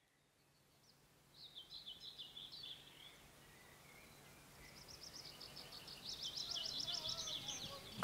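Small songbirds singing faintly: a short warbling phrase about a second and a half in, then, from about halfway, a run of rapidly repeated high notes that grows louder.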